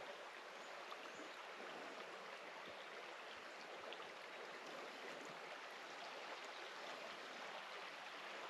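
Shallow creek trickling steadily over rocks, faint and even.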